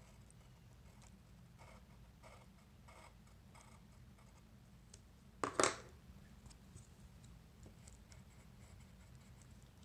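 Graphite pencil scratching faintly on paper in a run of short strokes, over a low steady hum. One brief louder scrape or rustle comes about halfway through.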